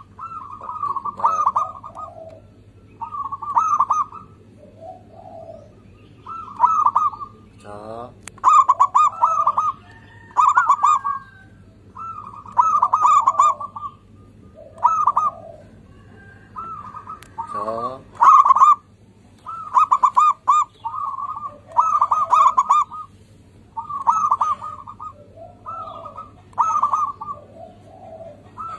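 Zebra dove (perkutut) cooing over and over: short bursts of rapid, trilling coos, each about a second long, repeated every one to two seconds. A lower, rising pulsed call comes in twice, about eight and eighteen seconds in.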